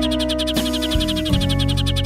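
Sparrows chirping in a fast, unbroken stream, a recorded lure call used to draw sparrows down to a trap. Background music with long held notes plays under the chirps.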